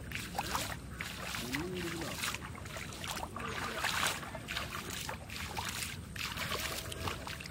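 Rainwater in a flooded paddy field splashing and sloshing, with irregular splashes about half a second to a second apart and brief voices calling.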